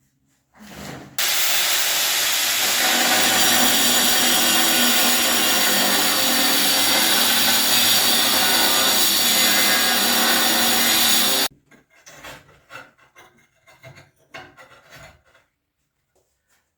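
A power tool grinding, running steadily and loud for about ten seconds, starting and stopping abruptly, followed by light knocks and clatter.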